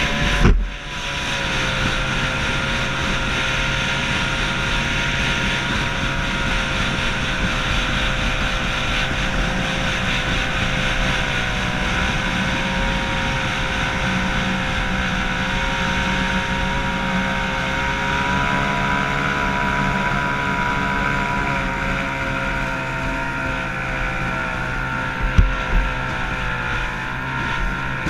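Yamato 102 two-stroke racing outboard on a small hydroplane running flat out at a steady pitch that wavers only slightly, with wind on the microphone. A couple of sharp thumps stand out near the end.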